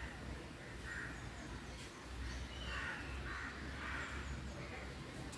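A crow cawing several times, short harsh calls about a second apart, over a low steady rumble.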